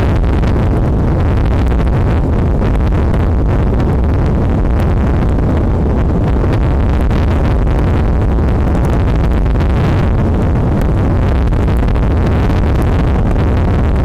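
Strong wind buffeting the eagle-nest camera's microphone: a loud, steady, deep rumble with faint scattered ticks through it.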